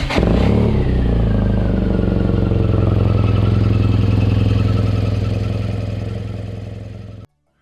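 BMW R nineT's air/oil-cooled boxer twin idling just after starting. Its fast start-up idle settles lower over the first couple of seconds, then runs steadily and stops abruptly near the end. It is being run after an oil change to check the oil level and look for leaks.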